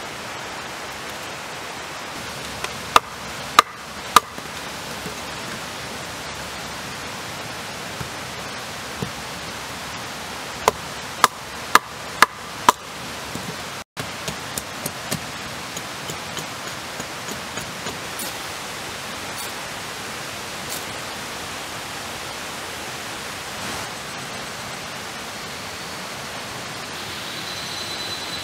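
Steady rushing of running water, with sharp cracks of wood breaking: a few loud cracks in the first half, then lighter knocks as a knife splits kindling.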